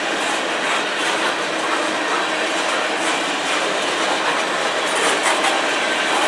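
Freight train of tank cars rolling past close by: a steady rumble and roar of steel wheels on rail, with a few clicks from wheels crossing rail joints, more of them near the end.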